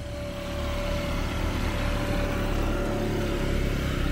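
Small motorbike engine running, growing louder about half a second in and then holding steady, with a steady whine over the low engine sound.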